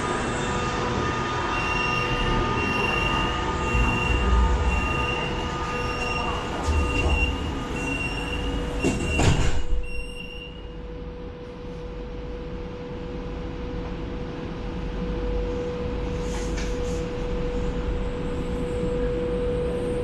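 Shanghai Metro train standing at a platform with its door-closing warning beeping rapidly and evenly for several seconds. The doors shut with a thud about nine seconds in. The carriage's steady electric hum carries on and grows slowly louder as the train pulls away.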